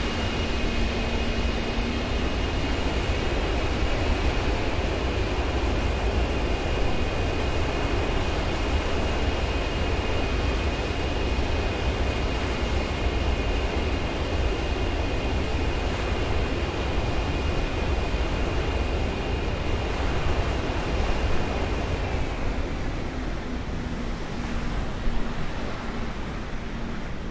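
Boeing 777 turbofan engines running at takeoff thrust: a steady, heavy jet noise with a high whine over it that dips slightly in pitch and fades near the end.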